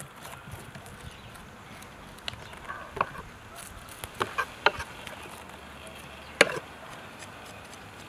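A kitchen knife scraping scales off a whole fish on a wooden cutting board, with about half a dozen short, sharp knocks of the blade against the board, the loudest about six seconds in.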